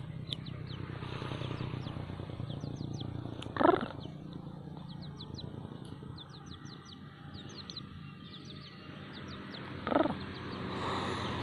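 Young kampung (Indonesian village) chicken peeping with short high chirps again and again. Two louder rising calls come about three and a half seconds in and near the end.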